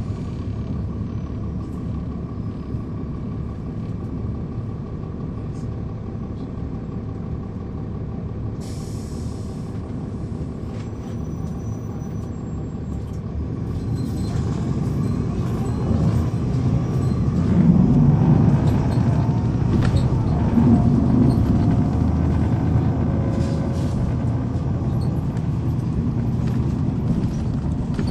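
Cabin sound of a NABI 416.15 transit bus with its Cummins ISL9 inline-six diesel running, a steady low rumble. A short hiss of air comes about a third of the way in, and past halfway the engine gets louder as it pulls harder, with its pitch rising.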